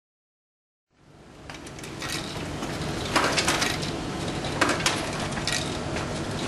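Sharp clicks and light clatter from a drinks vending machine being operated by hand, over a steady background hiss; the sound starts about a second in.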